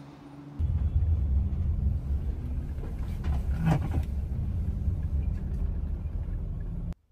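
Engine and road rumble heard from inside a vehicle's cabin as it drives slowly through a parking lot. It is a steady low rumble that starts suddenly about half a second in and cuts off abruptly near the end.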